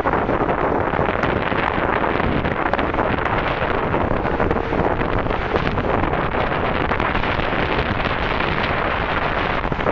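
Wind blowing across the microphone: a loud, steady rushing noise with no tone in it.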